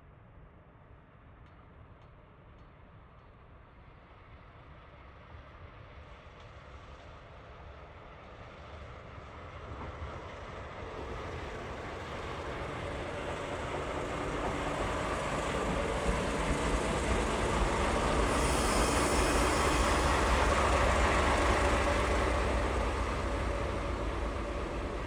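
DE15 diesel-hydraulic snowplow locomotive with its Russell plow rolling into a station, engine and wheels growing steadily louder as it approaches. It is loudest about three quarters of the way in, then eases slightly.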